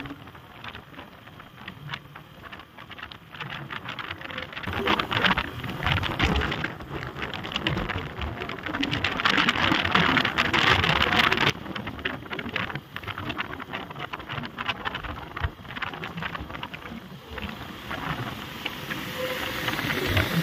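Wind rushing over the camera's microphone on a moving motorcycle, with tyre and road noise beneath: a rough, crackling hiss that swells for several seconds and then drops off abruptly about halfway through.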